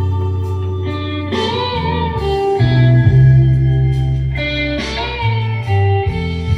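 Music: the instrumental guitar passage of a slow rock ballad, an electric guitar lead playing held notes over bass and accompaniment.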